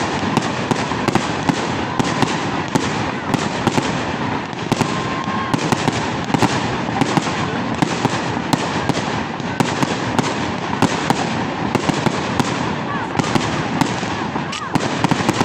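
Fireworks going off in a dense barrage: a continuous crackling with many sharp bangs and pops every second, and a couple of faint short whistles.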